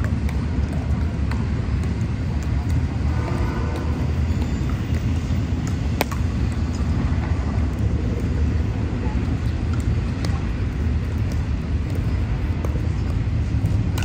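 Steady low rumble with one sharp pop of a pickleball paddle striking a ball about six seconds in, and a few fainter pops and a brief distant voice around it.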